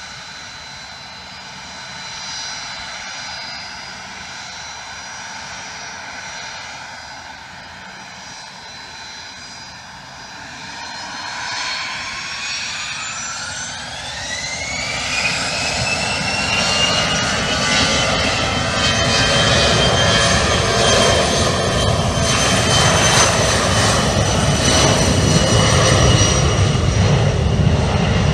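Twin turbofan engines of a private business jet (a Bombardier Challenger 600-series type), first running at low power with a steady whine, then spooling up to takeoff thrust about halfway through: the whine rises in pitch and the sound grows louder and stays loud as the takeoff roll begins.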